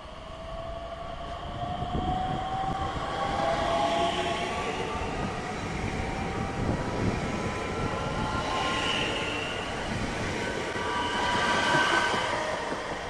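Bombardier Talent 2 electric multiple unit passing close by, its traction drive whining in a pitch that rises over the first few seconds as it gathers speed, over the running noise of the wheels on the rails. It grows loud again near the end as the rear car goes by.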